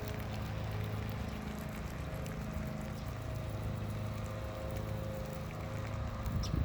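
Beer poured out onto a memorial, faint liquid splashing and fizzing, over the steady low hum of an idling vehicle engine.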